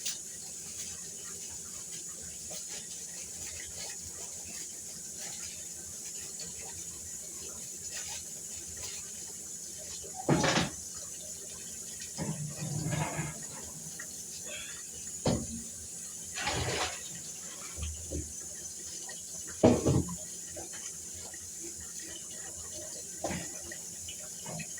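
Kitchen clatter: a handful of brief knocks and clunks of cookware and utensils, spread over several seconds, above a steady background hiss.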